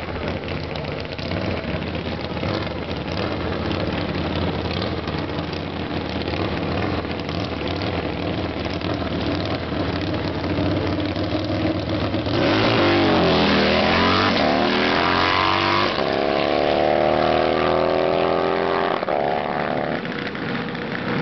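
Harley-Davidson V-twin drag bike engine idling at the start line, then launching about twelve seconds in: the revs climb hard and drop back at several gear changes, and the sound fades as the bike pulls away.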